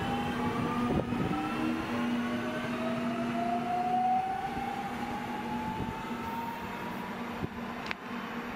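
NordWestBahn electric multiple unit pulling away from the platform and accelerating. Its traction motors whine, several tones rising slowly in pitch, over a steady low hum.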